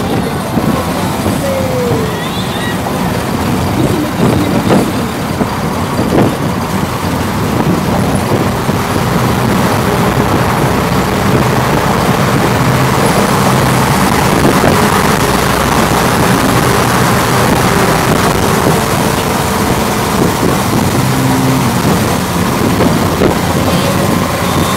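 Engine and road noise heard from inside the cabin of an old classic car driving along, a steady loud rumble that grows louder in the middle as the car passes through a tunnel.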